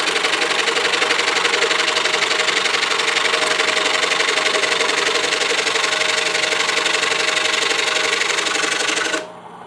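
DeWalt scroll saw running steadily, its blade cutting through a stack of wooden star pieces held together with tape. It stops suddenly about nine seconds in, leaving a faint hum.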